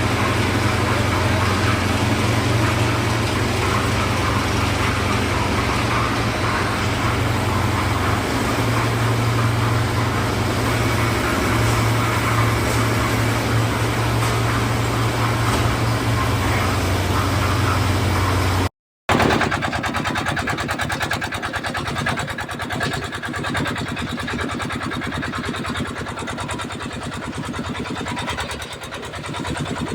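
Concrete mixer's engine running steadily with a deep hum. It breaks off abruptly about two-thirds of the way through, and a lighter machine sound with a fast, even chatter follows.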